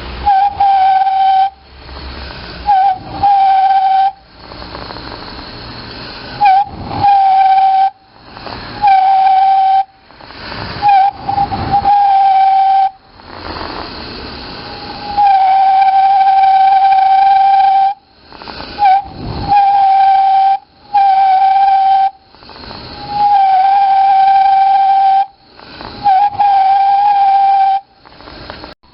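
Toyotomi Laser Burner kerosene heater's burner resonating in a loud, steady whistle like a steam whistle. The whistle comes in about ten bursts of one to three seconds, each often opening with a short upward chirp and cutting off sharply, with a quieter hiss between them. The uploader says this resonance happens when the burner is short of air.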